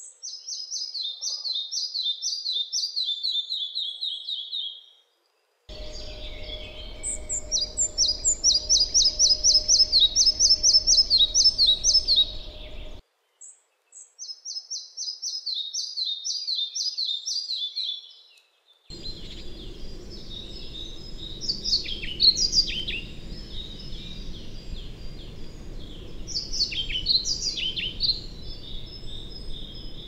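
Red-breasted flycatcher song: three phrases, each a fast run of high repeated notes that slows and drops in pitch toward the end. From about 19 s a different recording follows with pied flycatcher song, several shorter, varied high phrases over a hissy background.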